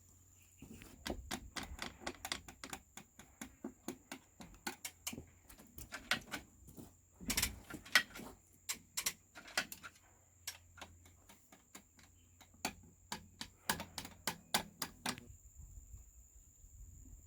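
Rapid light metallic clicks and taps in bursts of several a second, broken by short pauses, from hand tools at work on the excavator.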